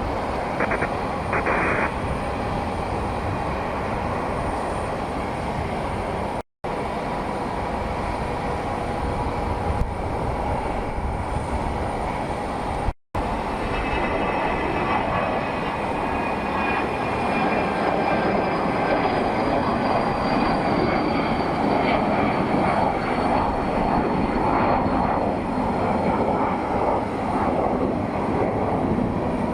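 Jet airliner engine noise: a steady loud rush, with a thin high whine that appears about halfway through and slowly falls in pitch. The sound cuts out briefly twice in the first half.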